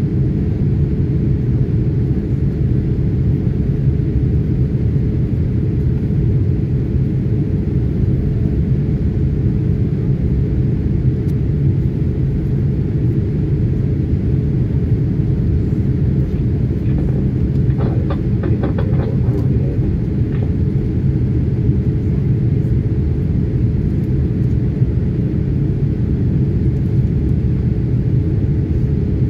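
Steady low rumble of engine and airflow noise inside the cabin of a Boeing 787 Dreamliner airliner during its descent.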